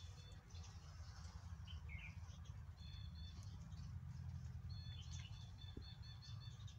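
Small birds chirping faintly, short high calls coming several times, over a steady low rumble.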